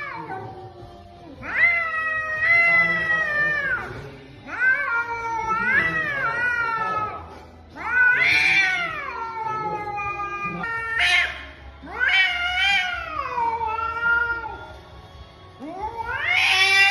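Cats yowling at each other in a standoff: a series of about six long, wavering cries of two to three seconds each, the pitch rising and falling within each cry.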